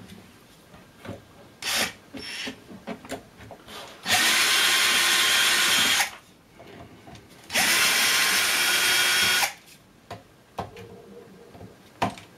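Cordless drill/driver running twice, each steady run lasting about two seconds, driving screws out of a steel side frame. Small clicks and knocks of handling come before and between the runs.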